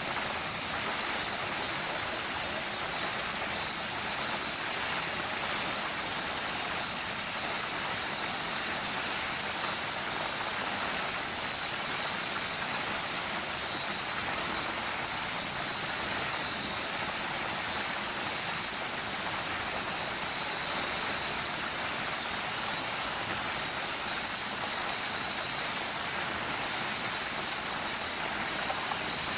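Cicada chorus: a steady high-pitched shrill, with faster pulsing calls layered over it.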